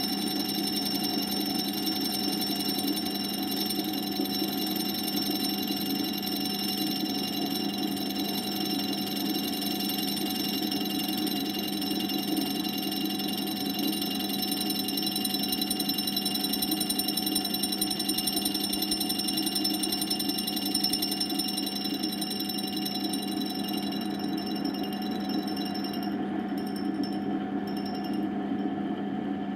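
Lathe running a diamond cup wheel on a homemade tool and cutter grinder attachment, grinding a small 6 mm end mill: a steady machine whine made of several tones. The highest tones fade near the end.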